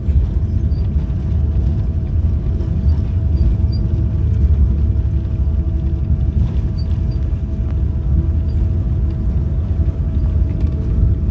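Inside the cabin of a Boeing 777-300 rolling out on the runway after landing: a loud, steady low rumble from the landing gear and engines, with a constant hum tone over it.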